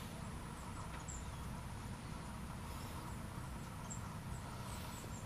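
Faint steady outdoor background noise, with a few brief, faint high chirps.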